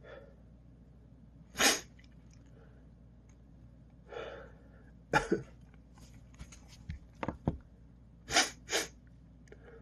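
A man sneezing repeatedly in a sneezing fit: several sharp sneezes spaced a few seconds apart, the last two in quick succession near the end.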